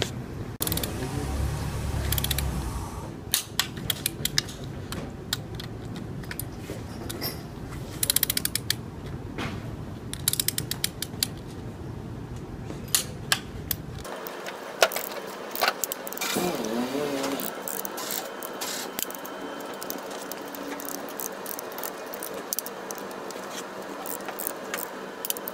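Ratchet wrench clicking in quick runs as the cylinder head bolts of a Toyota 1SZ engine are tightened during head installation, with pauses and light metal clinks of tools between the runs.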